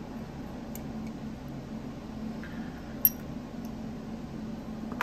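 Small metallic clicks from a bit screwdriver and tiny screws as the pocket clip is unscrewed from a folding knife's handle, with one sharp click about three seconds in and another at the end. A steady low hum runs underneath.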